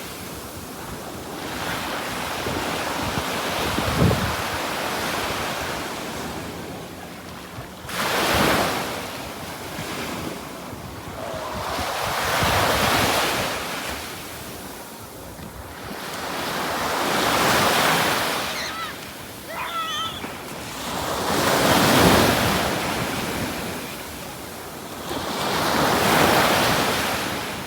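Ocean surf on a beach: waves swell, break and wash back about every four to five seconds, with wind noise underneath.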